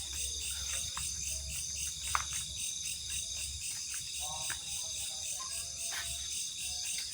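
Crickets and other insects trilling steadily in a chorus, a high, evenly pulsing buzz. A few faint clicks and a brief faint call come about four seconds in.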